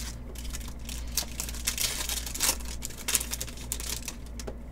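Trading cards and foil card-pack wrappers being handled by hand, making irregular crinkling, rustling and light clicks over a low steady hum.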